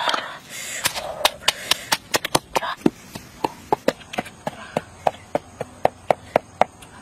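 Pestle pounding red chilies, garlic and coarse salt in a mortar: a steady run of sharp knocks, about three to four a second, that stops near the end.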